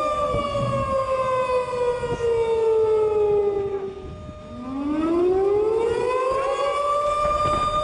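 Outdoor warning siren wailing a tornado warning. Its tone slides slowly down for about four seconds, dips briefly, then climbs back up over about three seconds to a steady pitch.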